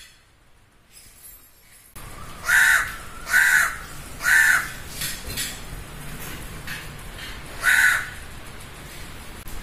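Crow cawing: three loud caws about a second apart, starting about two seconds in, then a few fainter calls and one more loud caw near the end, over a steady background hiss.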